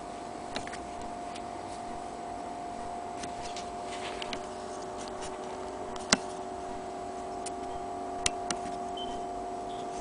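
Scattered sharp clicks and ticks of metal parts on an antique sewing machine being handled, the loudest a little after halfway through, over a steady hum.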